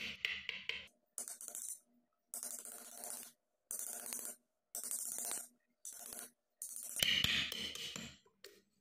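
A 1/8-inch wood chisel paring waste wood from a babul (acacia) plane body: a string of short scraping strokes, each under a second, with short pauses between. The longest and loudest stroke comes near the end.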